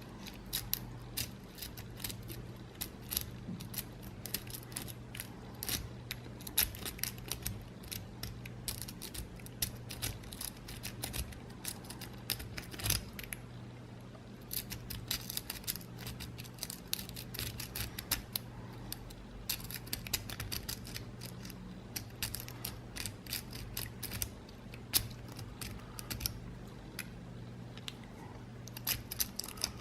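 A lock rake scrubbed in and out of the Y1 keyway of an Alba N50 five-pin padlock while a tension tool holds the core, giving rapid, irregular metallic clicks and scrapes as the pins are bounced. A low steady hum runs underneath.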